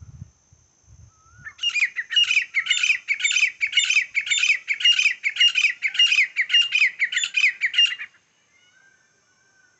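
Grey francolin calling: a loud run of about fifteen repeated notes, two or three a second, starting about a second and a half in and ending near eight seconds, followed by a few faint notes.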